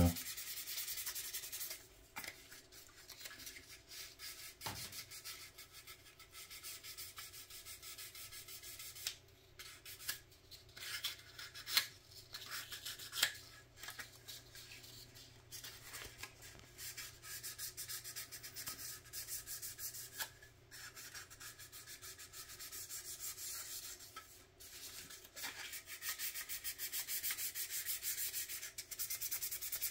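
Sandpaper rubbed over a 1/25-scale plastic model car body in rapid short strokes, with a few brief pauses. The body shell is being scuffed so the primer coat will stick.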